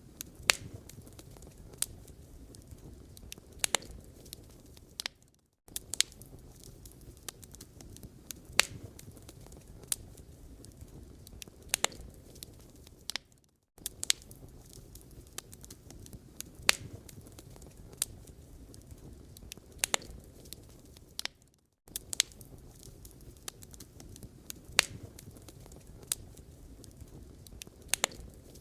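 Wood fire in a fireplace crackling: a low steady rumble of burning with irregular sharp pops and snaps of the logs. The sound drops out briefly about every eight seconds.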